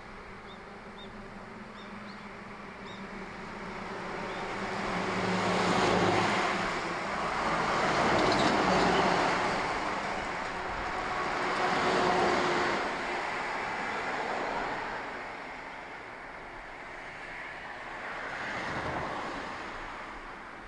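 Road traffic: vehicles passing one after another, the sound swelling and fading over a few seconds each, loudest in the middle.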